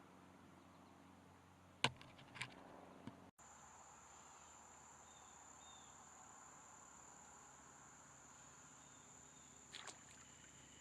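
Near silence with the faint, steady, high-pitched trill of crickets or similar insects, which starts about three seconds in. There are a few soft knocks around two seconds in and again near the end.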